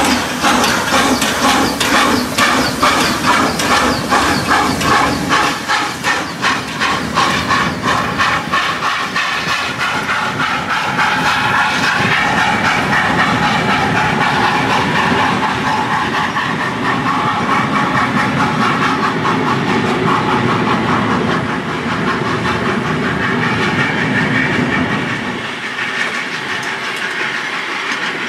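VR class Tk3 2-8-0 steam locomotive pulling away with regular exhaust chuffs and steam hiss, the beats quickening as it gathers speed. From about ten seconds in, the train's passenger coaches roll past with a steady rumble and clickety-clack of wheels over the rail joints.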